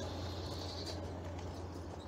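Large-scale garden model train rolling along its track with a steady low hum and wheel rumble, fading as the coaches move away.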